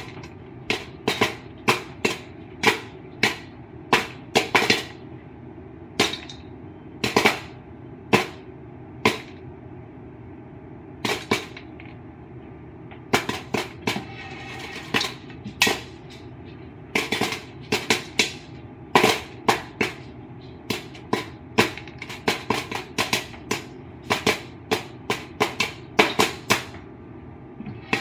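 Popcorn kernels popping in a foil-covered pot on the stove: sharp pops at irregular intervals, often several in quick succession, over a steady background hiss.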